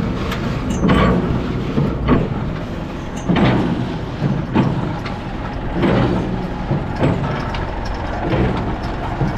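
Tractor engine running an old square baler that had sat unused for years. A steady drone carries a clatter that comes back about once every one and a quarter seconds in an even rhythm as the baler turns over.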